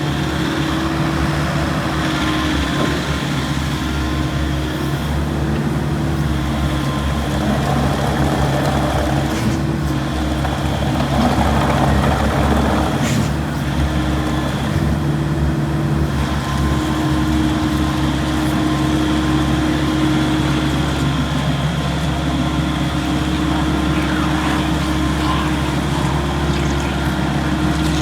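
Volvo ECR88D compact excavator's diesel engine running steadily, its note shifting slightly in pitch a few times.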